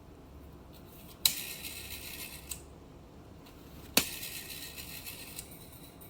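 Rotary dial of an Automatic Electric Type 90 telephone being dialed twice. Each time a sharp click is followed by about a second and a half of fast whirring as the dial spins back and sends its pulses.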